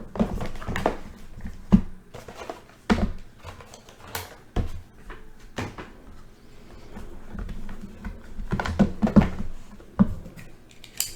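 Cardboard hobby box and its mini boxes being handled: irregular knocks, taps and rustles as the mini boxes are taken out and set down.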